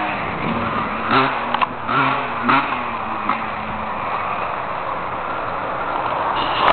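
Husqvarna WR 125 two-stroke single-cylinder enduro motorcycle engine running while warming up. It gives a few short throttle blips in the first three seconds, then runs steadily.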